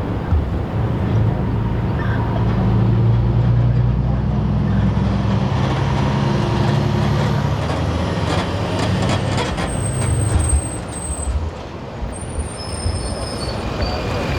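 A fire engine's diesel engine running steadily with a low rumble. There are a few sharp clicks about eight to ten seconds in, and the level dips briefly near eleven seconds.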